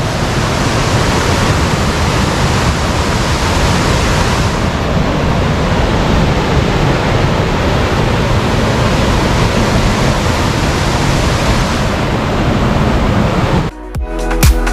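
Loud, steady rushing roar of a waterfall close by. About a second before the end it cuts off suddenly into background music with a steady beat.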